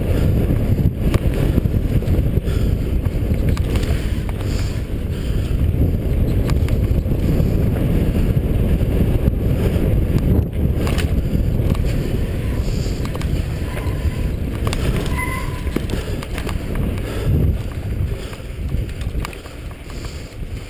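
Mountain bike descending a rocky dirt singletrack: wind buffeting the camera's microphone over tyres rolling on dirt and rock, with the bike knocking and rattling over bumps. It eases off a little near the end.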